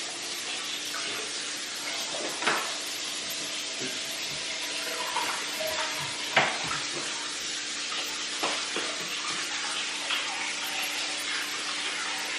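Steady hiss in a kitchen, with a few scattered knocks and clicks as items are handled in the cupboard and at the counter, the sharpest about two and a half seconds in and again around six seconds in.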